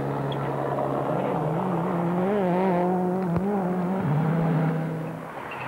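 A World Rally Car's turbocharged four-cylinder engine running hard at high revs, its note holding steady and wavering up and down with the throttle, easing off near the end.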